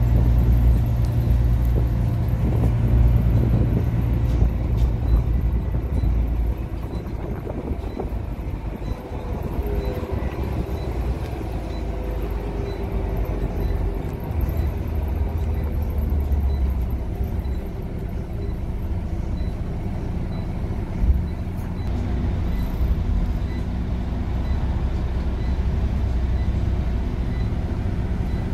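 Scania OmniCity single-deck bus heard from inside the passenger saloon while it drives: a steady low diesel rumble with the whine of its ZF automatic gearbox, the whine rising a little in pitch as the bus gathers speed about a third of the way in.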